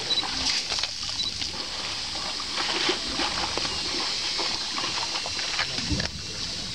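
Water splashing and sloshing as a young Asian elephant moves about in a shallow pond, in small irregular splashes throughout.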